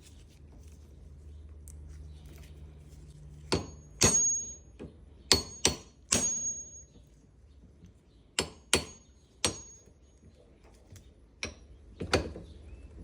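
Hammer blows on a steel steering-shaft universal joint, about nine sharp strikes in small groups, several leaving a short high metallic ring.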